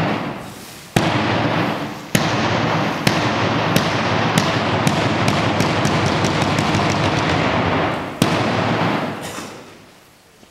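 Large cheer-squad bass drum struck in single hard beats that quicken into a fast run, with a dense noisy wash filling the gaps, then one last hard hit about eight seconds in that rings out and fades.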